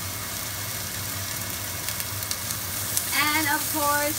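Sliced onion, ginger and garlic sizzling in hot oil in a stainless steel sauté pan, stirred with a wooden spatula that gives a few light clicks against the pan midway. A voice starts speaking about three seconds in.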